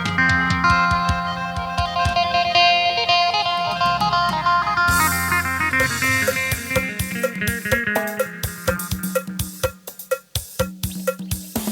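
Lam sing music: a phin (Isan lute) plays a fast plucked melody through an amplified sound system. A drum kit beat comes in about five seconds in.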